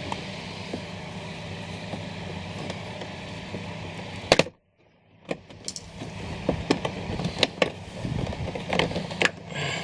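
Car door trim panel being pried off with a screwdriver, its plastic retaining clips snapping loose: a string of sharp clicks and snaps in the second half. Before that comes a steady low hum, then a brief cut to silence about halfway.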